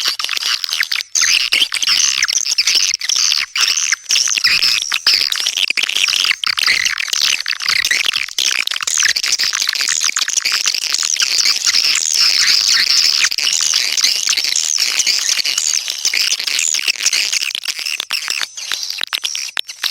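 Swiftlet lure-call recording: a dense, continuous mass of high-pitched, rapid twittering swiftlet chirps, the kind of call played to draw swiftlets into a nesting house.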